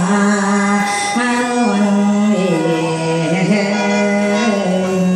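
Khaen, the Isan bamboo free-reed mouth organ, playing mor lam: a held drone under a melody that moves in steps from note to note.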